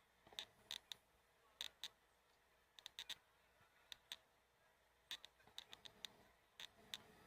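Near silence with faint, sharp clicks and ticks coming irregularly, a few every second.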